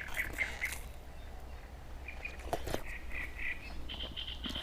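Small birds chirping in short, quickly repeated notes, in a few separate runs, over a low steady wind rumble. Two sharp clicks come about two and a half seconds in.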